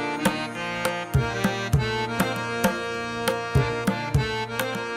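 Background music: drum strokes at roughly two to three a second over held melodic notes.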